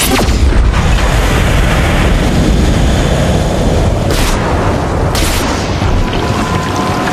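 Film sound effects of a giant alien machine, the World Engine, blasting into the ocean. A sudden heavy boom opens into a loud, continuous rumble with churning water, and two sharp hits land about four and five seconds in.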